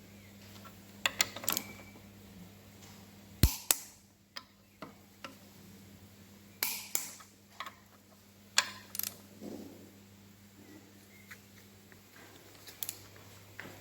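Hand tools clicking and knocking against metal engine parts during bolt tightening: a dozen or so sharp clicks, often in quick pairs, at irregular intervals over a faint steady hum.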